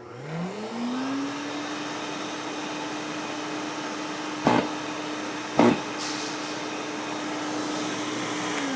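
SurfPrep dust-extraction vacuum switched on, its motor spinning up within about a second to a steady whine. Midway come two sharp knocks about a second apart: the self-cleaning HEPA filter shaking dust off into the collection bag, normal operation and not a fault. Near the end the motor is switched off and starts winding down.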